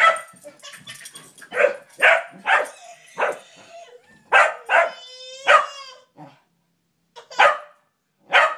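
Dog barking repeatedly in short, separate barks, with a pause of about a second shortly before the end.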